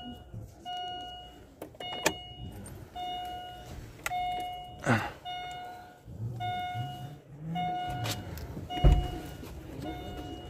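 Chevrolet Lacetti's dashboard warning chime beeping over and over, a short beep a little more often than once a second, with the ignition switched on, the engine off and the driver's door open. A few knocks and thuds of handling the car's interior sound over it, the loudest near the end.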